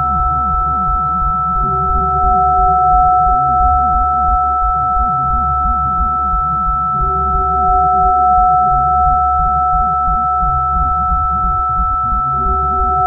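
Electroacoustic tape music: two high sine tones held steady over a dense, flickering low rumble, with a shorter mid-pitched tone returning about every five seconds, near the start, the middle and the end.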